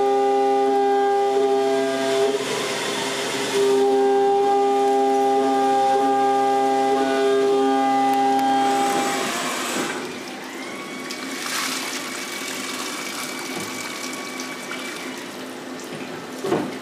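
CNC milling machine's end mill cutting billet aluminum under coolant spray: a loud, steady, multi-toned cutting whine that dips briefly about two seconds in and stops about halfway through. After that, a quieter hiss with a faint high tone, and a short sharp click near the end.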